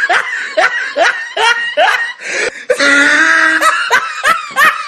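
High-pitched laughter in a run of quick rising squeals, about three a second, broken by one longer held note a little past the middle.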